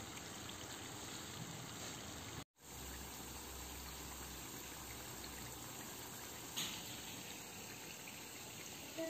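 Steady sizzling of brick-pastry briouates deep-frying in hot oil. It cuts out for an instant about a quarter of the way in, and there is a single click about two-thirds through.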